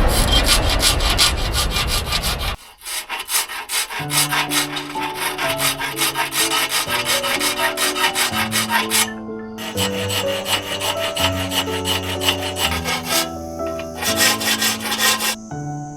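A two-person rip saw rasping through a log for about two and a half seconds. Background music then takes over: a stepped melody with a fast, even percussive beat.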